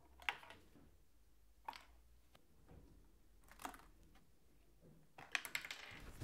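Plastic pry tools levering the gauge needles off their shafts on a Mazda Miata instrument cluster: a few faint, sharp clicks, with a quick run of small clicks near the end.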